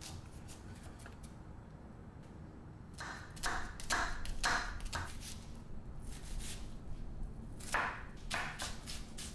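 Chef's knife chopping garlic and small onions on a wooden cutting board: repeated taps of the blade against the board. A few light taps come first, then from about three seconds in a run of heavier chops at roughly two or three a second, with a short break before more chopping.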